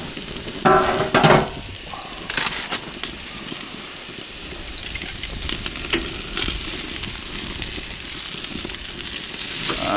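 Thick steak sizzling on a small portable grill's grate, with scattered sharp crackles and clicks as fat drips into the fire and flares up and the steak is handled with metal tongs.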